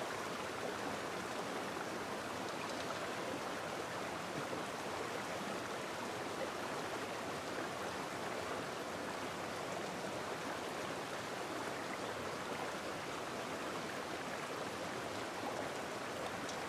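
Shallow stream running over rocks, a steady rushing of water.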